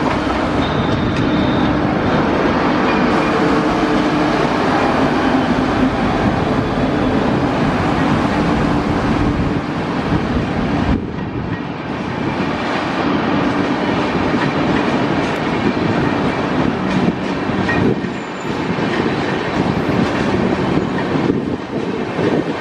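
WAP7 electric locomotive and its express coaches passing close by, wheels clattering on the rails.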